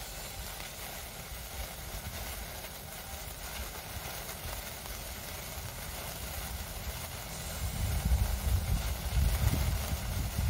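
Sparkler burning with a steady fizzing hiss and fine crackle of throwing sparks. An uneven low rumble comes in about three quarters of the way through and becomes the loudest sound.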